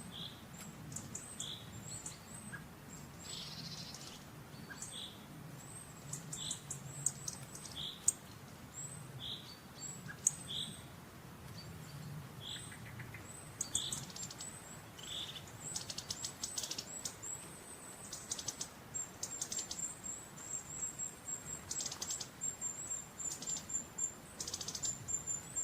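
Small birds singing, faint: one repeats a short note about once a second while thin high chirps come and go, and a rapid high trill joins in the second half.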